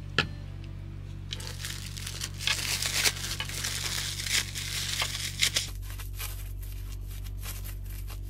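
Plastic packaging crinkling and rustling as it is handled, with sharp crackles, for about four seconds. A single sharp click comes just before it.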